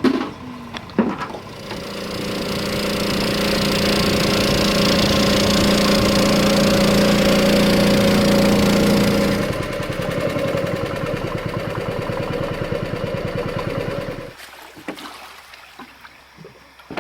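Outboard motor of a small river boat running: two knocks at the start, then the engine builds up and runs steadily at high throttle, drops to a lower steady drone about halfway through, and cuts off abruptly a few seconds before the end.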